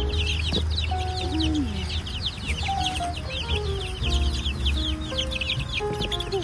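Many baby poultry chicks peeping at once: a dense, continuous chorus of short, high, falling cheeps, with a slow background melody underneath.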